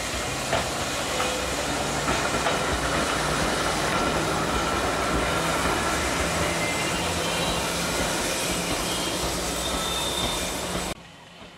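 Snaefell Mountain Railway electric tramcar running past close by, its wheels rolling and clattering on the rails with a few thin high tones over the steady rumble. The sound drops off sharply near the end.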